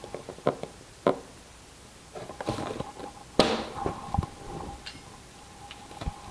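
A few scattered clicks and knocks from hand tools worked against a plastic bucket lid while a pilot hole is punched in it, the sharpest knock about three and a half seconds in.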